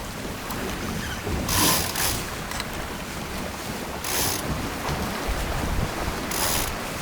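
Wind buffeting the microphone and water rushing along the hull of a Lightning sailboat running downwind, with three brief louder hissing surges.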